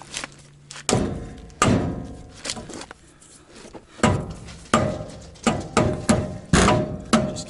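A wooden 2x4 hammering the end of a seized steel spindle on a Dana 44 front axle: about eight heavy blows with a pause in the middle, each followed by a short metallic ring. The spindle is being driven loose from the steering knuckle after its bolts were removed and it was soaked in penetrating oil.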